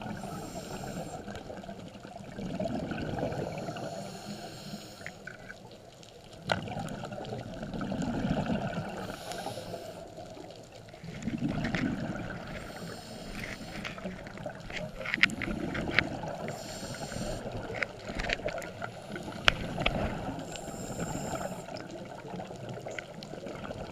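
Scuba diver's breathing heard underwater: a hiss from the regulator on each inhale and a low bubbling rumble on each exhale, repeating about every four seconds, with scattered sharp clicks.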